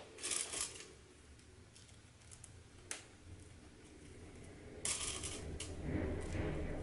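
Handling noise of webbing and a plastic ladder-lock slider being folded and pinned by hand: soft rustles near the start and again about five seconds in, with a single small click about three seconds in.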